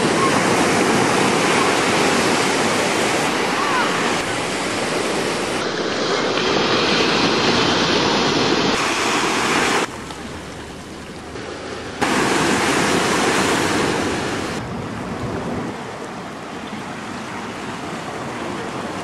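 Ocean surf breaking and washing up a sandy beach, heard as a steady rushing noise. It drops sharply about ten seconds in, comes back two seconds later, and settles quieter from about fifteen seconds on.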